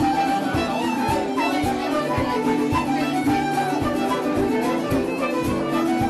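Traditional Irish music led by a fiddle playing a running melody over sustained lower notes, with a steady low beat about twice a second.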